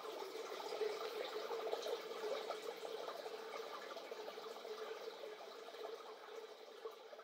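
Faint ambient electronic soundscape texture: a dense trickling crackle over a steady mid-pitched hum, slowly fading out.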